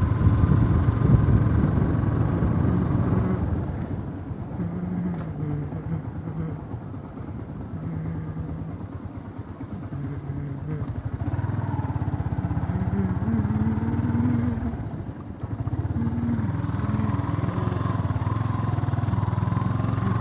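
Yamaha R15 motorcycle's single-cylinder four-stroke engine running under way on a dirt road, its note shifting up and down with the throttle, over a steady low rumble of wind and tyres; it briefly drops away about fifteen seconds in.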